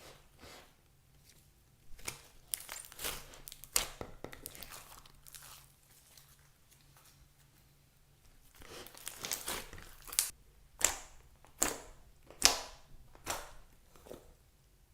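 Slime being squeezed and pressed by hand, crackling and crinkling. Toward the end come about six sharp pops, each under a second apart.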